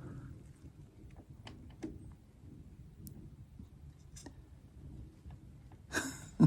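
Faint scattered clicks and light handling noises, with a short louder rush of noise about six seconds in and a sharp knock right at the end.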